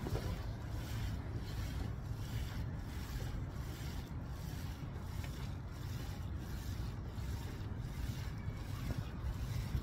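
Rhythmic rubbing and rustling of clothing and plastic sweat wrap as small dumbbells are pumped up and down, about three strokes every two seconds, over a low rumble of wind on the microphone.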